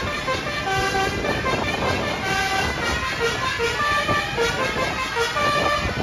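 Basuri telolet bus horn playing a quick multi-note tune of short tones at several pitches, over a steady wash of traffic noise.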